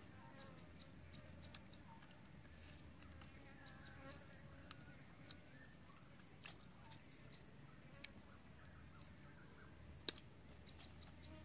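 Faint, steady, high-pitched buzzing of forest insects, with a few soft scattered clicks and one sharper click near the end.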